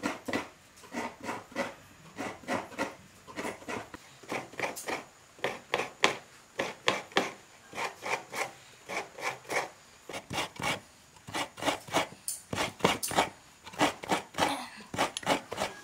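Fresh coconut half scraped against the toothed blade of a hand coconut grater, in quick, even rasping strokes about two to three a second, the grated flesh falling onto a steel plate.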